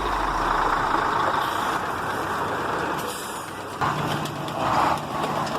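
A heavy truck's engine working, with a loud, steady rushing hiss; about four seconds in, a steady low engine hum sets in.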